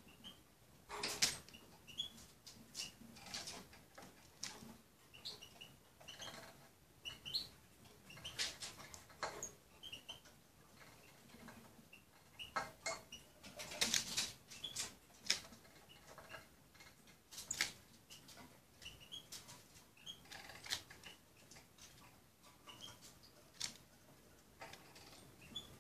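A small finch pecking and nibbling at food in a glass bowl: irregular clicks and taps of its beak on the glass and the food, with short high chirps now and then.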